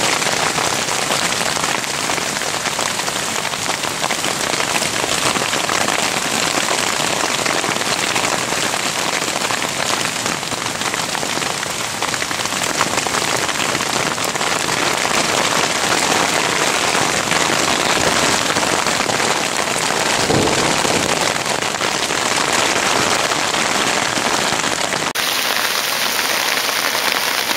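Hailstorm: hailstones falling thick and fast on leaves, moss and ground, a dense, steady hiss of countless small impacts. The sound changes slightly near the end.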